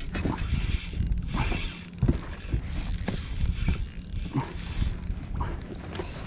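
Spinning reel being cranked under load, with the rotor whirring in short, uneven strokes as a hooked smallmouth bass is reeled in to the boat.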